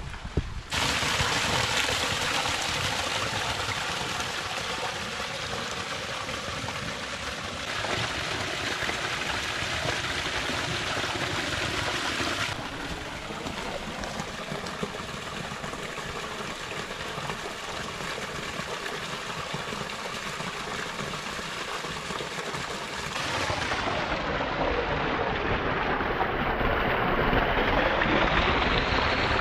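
A small mountain creek running and splashing over rocks: a steady rush of water that jumps in loudness and tone abruptly several times. Near the end it comes from a small cascade spilling down the rocks close by.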